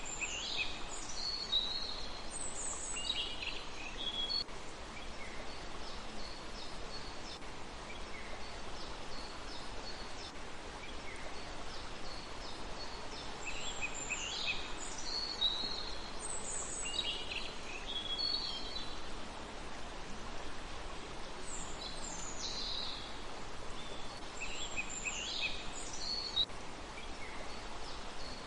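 A songbird singing short phrases of quick, sweeping high notes in three bouts, near the start, about halfway through and again near the end, over a steady outdoor hiss.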